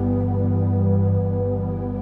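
Background music: slow ambient synthesizer pads with held chords and a sustained low bass that shifts about a second in.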